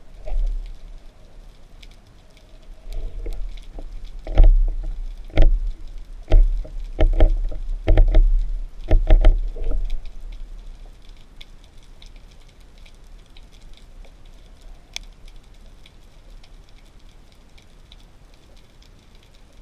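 A series of dull thumps and knocks, roughly one a second, some in quick pairs, between about four and ten seconds in, over a faint steady hiss.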